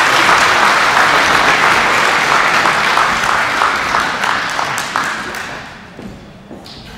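Audience applauding, the clapping fading away about five to six seconds in.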